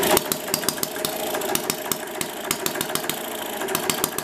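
Small homemade vertical four-cycle hit-and-miss engine running unloaded: sharp firing pops come at uneven intervals, a few a second and of differing strength, over a steady mechanical running sound. The engine is hitting and missing, the way a hit-and-miss governor lets it coast between power strokes when there is no load.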